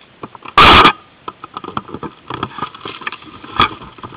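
Irregular clicks and rustling from a player moving through long grass with an airsoft rifle, with one very loud, short burst of noise about half a second in and a sharp crack near the end.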